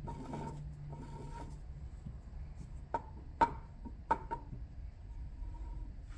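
Armature of a Club Car golf cart's electric motor being turned by hand inside its field housing: a faint rubbing with a few sharp clicks between about three and four and a half seconds in, the loudest at about three and a half seconds. The owner suspects that play in the armature bearing lets it rub on the field electromagnet, and that this is the motor's grinding noise.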